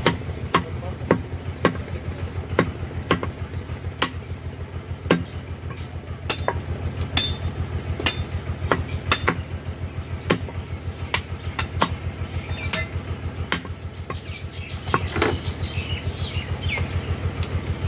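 Butcher's cleaver chopping beef on a wooden log chopping block, in steady strokes about two a second, with a low engine throb running underneath.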